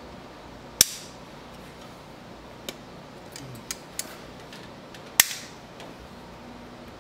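Distributor cap and its plug-wire ends being pressed and snapped into place: two sharp snaps about four seconds apart, with a few lighter clicks between them.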